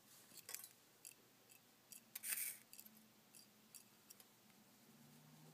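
Near silence, with a few faint clicks and a short hiss about two seconds in.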